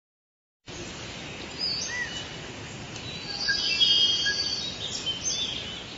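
Forest ambience: several birds chirping and calling over a steady hiss, starting about a second in, with the busiest burst of chirps and trills near the middle.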